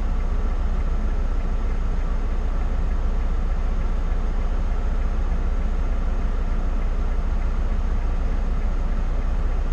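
Motorcoach diesel engine idling, a steady low drone heard from the driver's seat.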